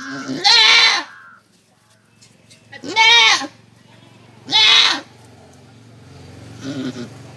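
Doe goat in labour bleating, in the pushing stage with the water bag out: three loud calls that each rise and fall in pitch, and a fainter fourth near the end.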